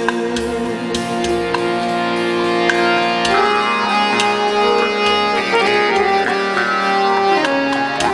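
Live world-music ensemble playing. Held melodic tones shift to new notes about three seconds in and again near the end, over a steady run of hand-drum and cymbal strikes.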